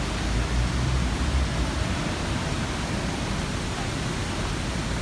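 Steady rushing noise with a deep rumble underneath, typical of an MRT train running on the line.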